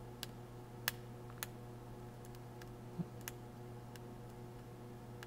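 A few faint, scattered ticks of a fine metal tool tip touching a laptop logic board while a small surface-mount capacitor is taken off, over a steady low electrical hum.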